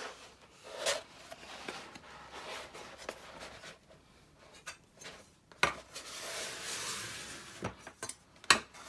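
A rolled diamond painting canvas with its plastic cover film being handled, laid out and smoothed flat by hand on a wooden table: rustling and sliding, with a steady rub in the second half. There is a sharp knock about five and a half seconds in, and a louder one near the end as a metal ruler is set down on the canvas.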